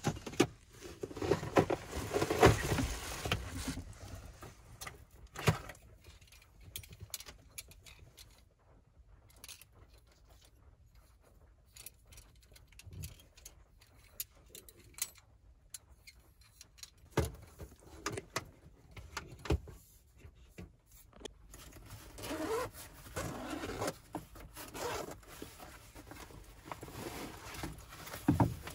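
Camping gear being handled: rustling as bags and a plastic crate are rummaged through, then scattered small metal clicks and scrapes as a compact folding gas stove is unfolded. The rustling is busiest at the start and picks up again near the end.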